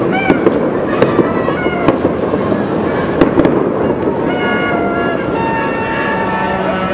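Fireworks crackling and popping in quick succession, with short whistling glides. From about four seconds in a steady pitched tone of several notes sounds over the crackle.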